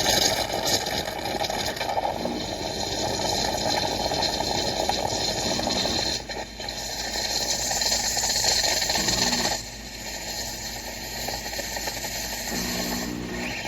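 Mattinata 20-bar espresso machine running with a loud, steady mechanical buzz and hiss, dipping briefly twice, about six and nine and a half seconds in.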